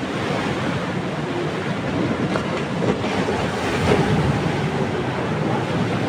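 Ocean surf breaking and washing around the pilings of a concrete-and-plank jetty: a continuous rushing rumble that swells loudest about four seconds in.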